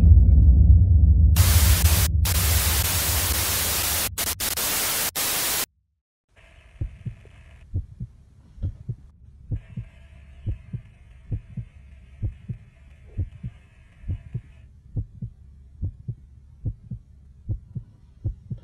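A low boom fades out, then loud static hiss runs for about four seconds, flickering, and cuts off. After a brief silence, a steady run of short low thumps, roughly two a second, plays over faint hiss.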